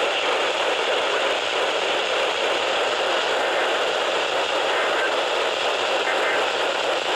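Radio static: a steady, loud hiss of noise from a radio receiver with no voice on the channel.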